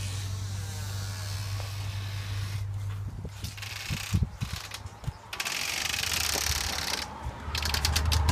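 Footsteps up porch steps, with the clicks and knocks of a storm door and front door being opened, over a steady outdoor hum. The sharpest knocks come about four seconds in.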